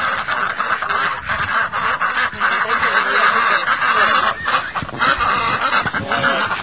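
A flock of domestic ducks quacking all together in a loud, continuous clamour of overlapping calls.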